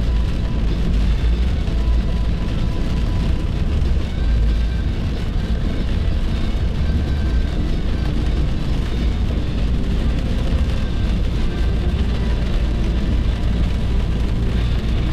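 Car driving at highway speed: steady road and wind noise with a deep, continuous rumble.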